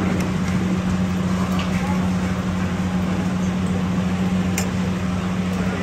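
Street-food stall ambience: a steady low machine hum over background noise and a murmur of voices, with a sharp clink about four and a half seconds in.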